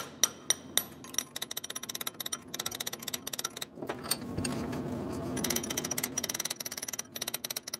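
Hammer tapping a knife's guard down onto the tang, with the blade clamped upright in a vise. The guard is a pressure fit being driven on until it bottoms out. A few steady strikes about four a second give way to quicker, lighter taps, with a stretch of rustling noise about midway.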